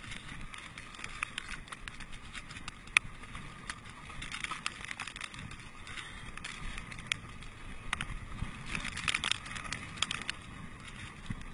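Mountain bike riding fast down a gravel trail: a steady crunch and crackle of tyres on gravel with frequent clicks and rattles from the bike over a low rumble, and one sharp knock about three seconds in.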